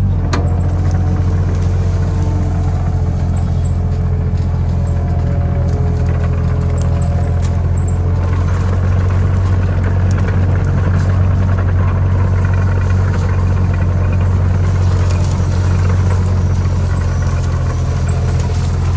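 Small diesel engine of a Kato HD35 mini excavator running steadily at one constant speed, a loud even low hum with faint clicks and rattles over it.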